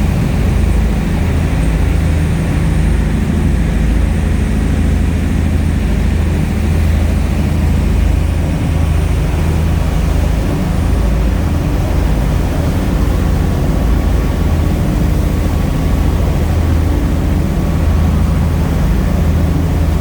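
A passenger ferry's engine droning steadily, a loud low hum that holds even without changing pitch.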